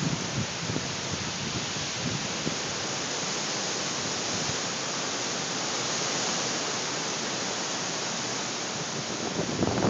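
An even, steady rushing hiss of a dust storm's strong wind, heard from behind a window.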